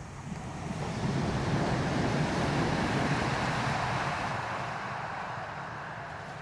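Alstom Citadis Dualis electric tram-train passing by: wheels rolling on the rails, rising to its loudest about two to three seconds in, then fading as it moves away.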